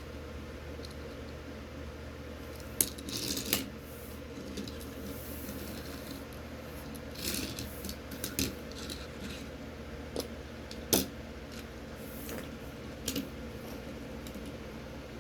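Hands handling a Hot Wheels die-cast toy car and its plastic blister packaging: scattered sharp clicks and brief crackles, some clustered around three and seven seconds in, the sharpest click about eleven seconds in, over a steady low hum.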